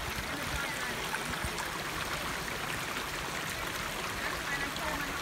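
Shallow creek trickling and gurgling over rocks, a steady rush of running water.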